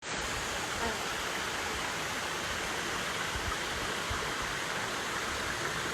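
Steady rushing noise of running water, starting abruptly and holding even throughout.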